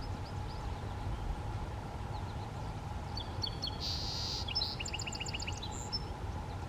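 A small songbird sings one short phrase of rapid, high repeated notes about halfway through, over a steady low rumble of outdoor background noise.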